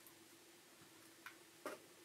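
Near silence with two faint clicks about a second and a half in, from a metal camera lens being handled and moved.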